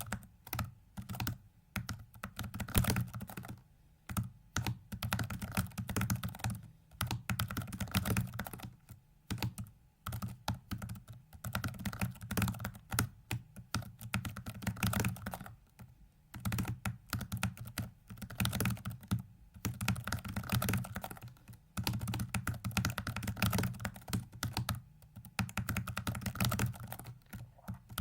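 Computer keyboard keys clacking in rapid flurries, with short pauses between bursts: moves being keyed in to turn a virtual 4x4x4x4 hypercube puzzle during a speedsolve.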